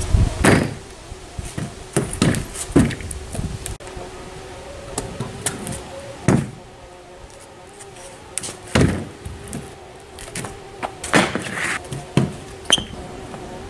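Kick scooter banging and clattering on a thin board as the rider tries a trick again and again: about eight sharp clacks and rattles, a second or more apart.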